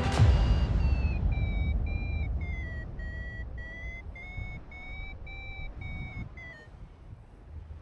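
Wind buffeting the microphone, with a paragliding variometer beeping a fast run of short high tones from about a second in until near the end. The pitch dips a little, then rises: the vario signalling lift as the wing climbs.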